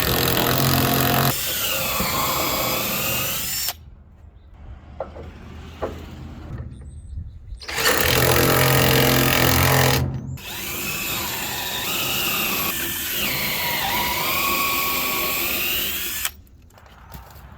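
Power drill running in two long bursts, each starting with a steady hum before the pitch wavers as the bit bores into the oak board. Between the bursts there are a few light clicks.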